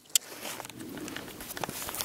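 One sharp click near the start, then faint rustling camera-handling noise and a few soft footsteps on grass and stone.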